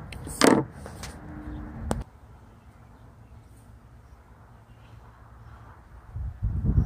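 Handling noise as a phone camera is set in place: a short rustle, then a sharp click about two seconds in, after which there is only a faint hush. A low rumble comes in near the end.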